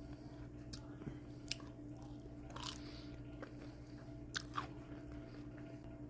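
Close-up chewing of fried, breaded jalapeño poppers, with about five short, sharp mouth clicks spread through the chewing.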